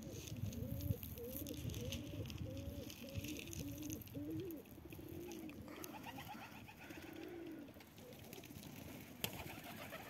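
Domestic pigeons cooing: a string of low, rising-and-falling coos repeated about twice a second, fading out about halfway through.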